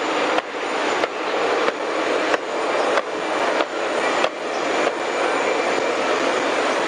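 Steady roar of military aircraft engines running on the apron, with a thin high whine. A short regular beat comes about every two-thirds of a second.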